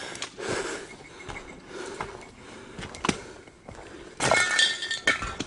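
Footsteps crunching over dirt and debris, with a few sharp clinks underfoot and a louder scraping clatter about four seconds in.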